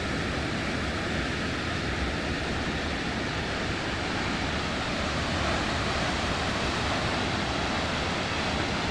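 Steady, unbroken rush of a large waterfall.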